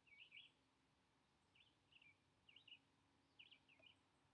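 Faint bird chirping: short, high chirps in quick little clusters, repeating every half second to a second, over quiet outdoor background.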